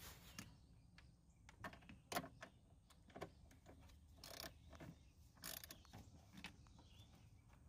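Faint, irregular metallic clicks and scrapes of hands and a tool working a car battery's terminal clamp.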